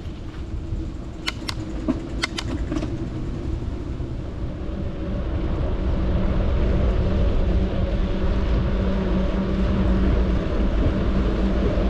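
A vehicle running with a steady low rumble and a droning hum, growing louder about halfway through, with a few sharp clicks in the first few seconds.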